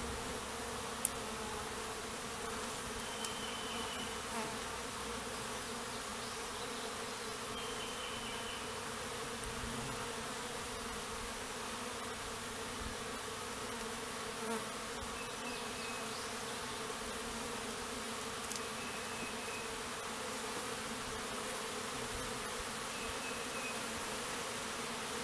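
A honeybee swarm buzzing in a steady drone, the colony disturbed as its brood comb is cut out of the bait hive and moved.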